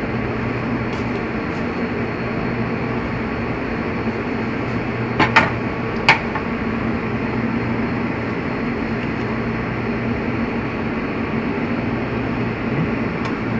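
Steady hum of kitchen machinery, such as ventilation or refrigeration, with a constant low tone. A few light knocks come about five to six seconds in, as a plastic food container is moved on the wooden cutting board.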